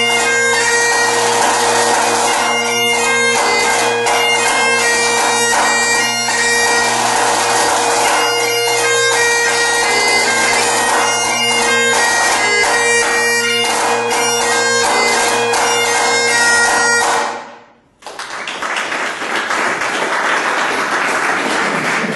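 Highland bagpipes and a pipe-band side drum playing a 6/8 march: steady pipe drones under the chanter tune, with crisp snare strokes and rolls. The playing stops about seventeen seconds in, and applause follows.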